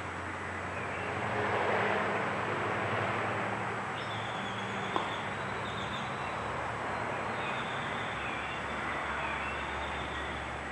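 Outdoor ambience: a steady hum of distant traffic that swells briefly near the start, with faint bird chirps and a single click about five seconds in.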